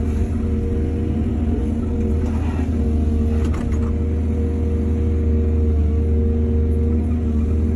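Excavator's diesel engine running steadily under load, with a short scrape and clatter of the bucket or soil about two and a half and three and a half seconds in.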